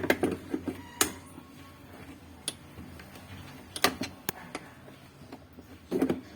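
Scattered sharp clicks and knocks, about half a dozen spread irregularly over several seconds, as tools and metal parts are handled.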